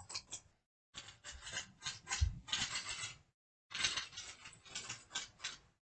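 Typewriter sound effect playing back: a run of rapid mechanical key strikes, broken twice by short gaps of dead silence.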